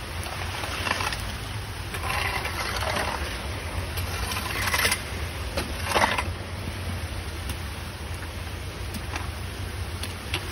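Gutter water running into a clogged street storm drain grate, with short splashes and scrapes as a rake drags leaf and pine-needle litter off the grate. The loudest splashes come around the middle.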